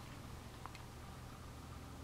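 Near silence: faint room tone with a steady hiss and a low hum, and one faint short tick about two-thirds of a second in.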